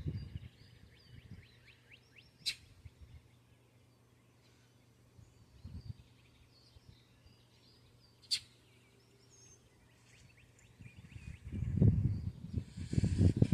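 Faint backyard birdsong, small chirps scattered through, with two sharp clicks about six seconds apart. Near the end, a low rumbling noise rises and grows loud.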